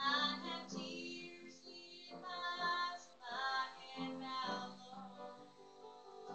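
A group of girls singing a slow song, their voices carrying sustained, gliding notes.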